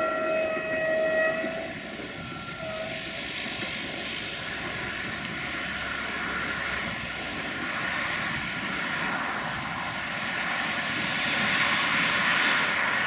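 Train horn sounding a long blast and then a short one, followed by a steady rushing noise that grows louder near the end.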